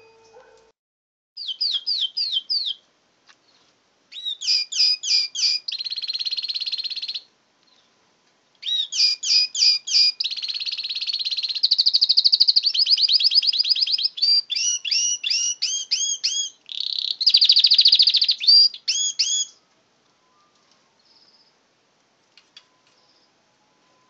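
Domestic canary singing: rapid runs of repeated notes and fast trills, in three bouts with short pauses between them, then falling silent near the end.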